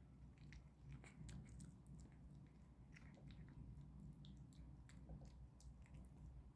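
A kitten chewing homemade food: faint, irregular small clicks and smacks.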